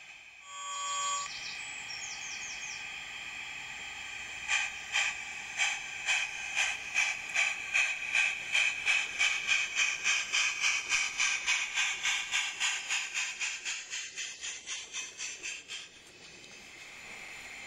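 16mm-scale model Barclay 0-4-0 tank locomotive sounds a short whistle toot, then pulls away chuffing at about three beats a second. The chuffs grow louder as it approaches, then fade and stop as the coaches roll past.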